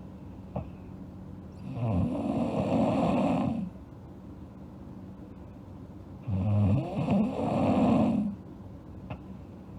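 A sleeping girl snoring: two rattly snores, each about two seconds long and roughly four and a half seconds apart, with quieter breathing between. A faint short click comes about a second before each snore.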